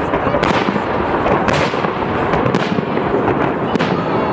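Fireworks salute: dense continuous crackling and booming, with a sharper bang about once a second.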